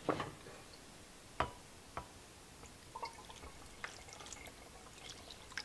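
Water poured from a glass measuring cup onto a coffee carafe's lid, splashing and dripping into a plastic tub below; a few sharp knocks come in the first two seconds. The pour tests whether water passes through the lid's freshly cleared passage.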